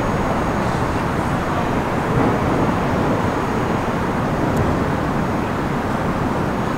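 Bombardier R179 subway train pulling away along elevated track, gathering speed; steady wheel-on-rail and running noise with no distinct knocks or whine standing out.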